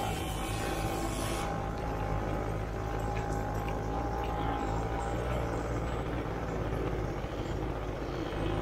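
Quad bike (ATV) engine running steadily as it rides across sand.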